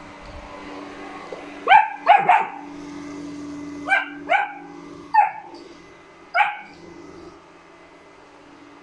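German Shepherd puppy barking: seven short, sharp, high-pitched barks, a quick run of three about two seconds in, then two, then two single barks, the last at about six and a half seconds. Under them a robot vacuum cleaner runs with a steady low hum.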